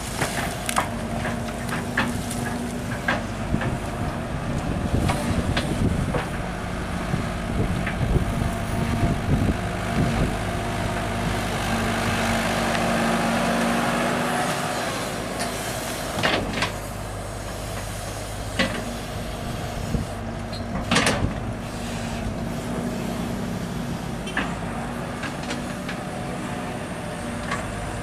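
Sumitomo 265 tracked excavator working wet soil, its diesel engine running steadily, with scattered sharp knocks and clanks. The engine grows louder for a few seconds around the middle, then settles back.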